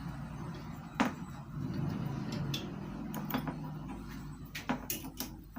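Small clicks and taps of a wire and screw being handled at the screw terminal of an electric water heater's element, with one sharper click about a second in and a few lighter ones later, over a low steady hum.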